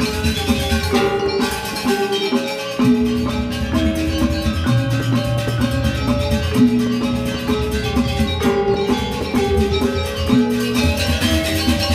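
Balinese gamelan gong kebyar playing: bronze metallophones ringing in fast, dense strokes over kendang hand drums.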